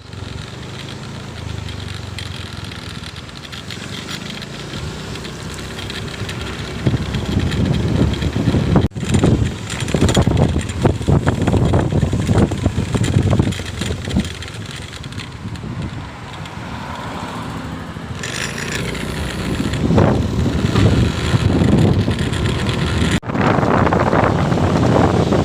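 Road traffic passing close by: engine and tyre noise of vehicles on a main road, swelling loudly twice as vehicles go past, with a few abrupt cuts in the sound.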